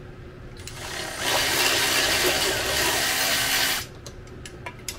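A power ratchet runs for about two and a half seconds, spinning off a nut that holds the sterndrive's lower unit to the upper unit. It builds up about a second in and cuts off suddenly.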